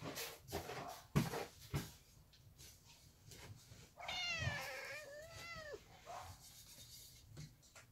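A domestic cat gives one long meow about four seconds in, rising slightly then falling away, the call of a cat that wants to be let outside. Two sharp knocks come about a second earlier.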